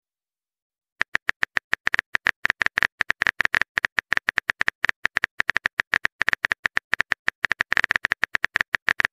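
Simulated phone-keyboard typing sound effect: rapid, slightly irregular taps, about nine a second, starting about a second in as a message is typed out letter by letter.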